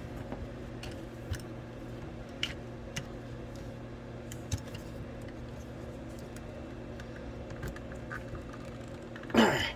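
Scattered small clicks and taps over a steady low hum; near the end, a short loud squeak that falls in pitch.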